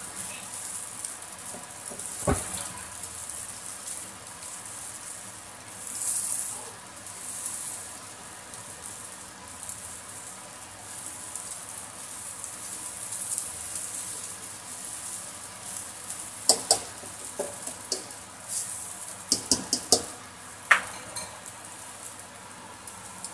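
Egg and strips of luncheon meat frying in a nonstick wok: a steady high sizzle. A spatula knocks once against the pan about two seconds in, and clicks and scrapes on it several times in the second half.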